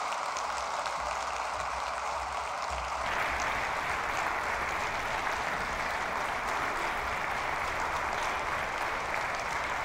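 Audience applauding steadily, the applause getting louder about three seconds in.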